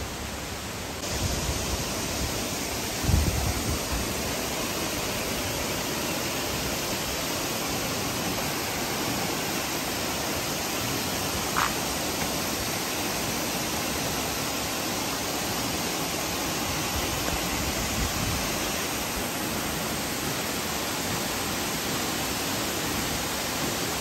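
Steady, even rush of a tall waterfall pouring into its pool, a dense hiss of falling water, with a brief low thump about three seconds in.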